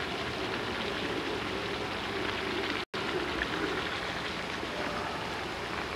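Steady outdoor background noise with no single clear source, broken by a brief total dropout about three seconds in where the camcorder recording stops and restarts.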